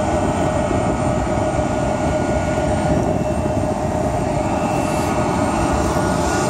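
Jet engines of a Boeing 757 running steadily as it taxis: a loud, even rush with a steady whine held over it.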